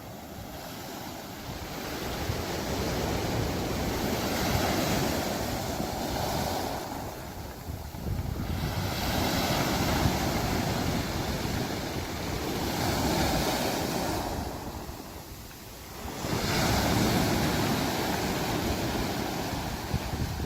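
Sea waves breaking and washing in, the surf swelling and ebbing every few seconds, with wind buffeting the microphone.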